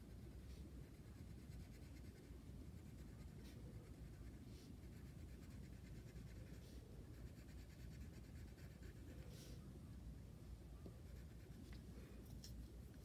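Faint scratching of a wax crayon colouring on paper, with a few scattered strokes over a low steady room hum.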